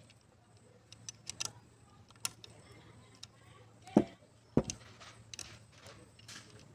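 Light metallic clicks and taps of hand tools and parts on a Bosch alternator's metal casing, with two louder knocks about four seconds in, half a second apart.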